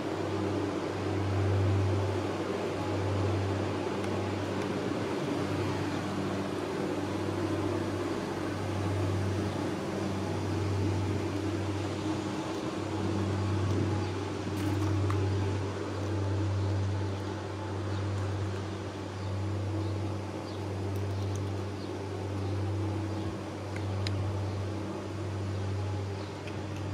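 A steady low mechanical hum that swells and fades about once a second, over a light hiss.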